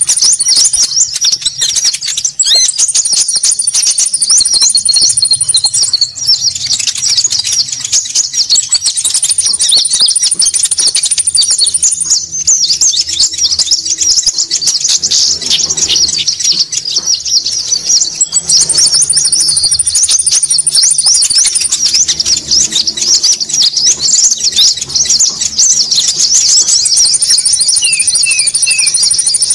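Small songbirds calling noisily in a bird-lure recording: dense, rapid, high chattering chirps without pause, with a thin high whistle held for two to three seconds at a time that returns several times.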